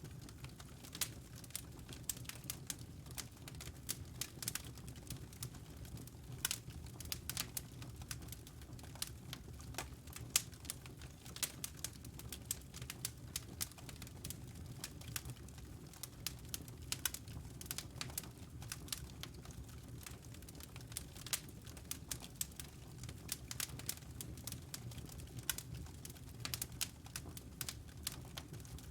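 Wood fire burning in a fireplace: logs crackling with frequent sharp, irregular pops and snaps over a steady low rumble of the flames.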